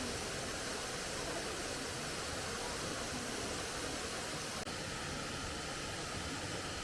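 Steady rush of a waterfall: falling water heard as an even hiss, with a momentary break about four and a half seconds in.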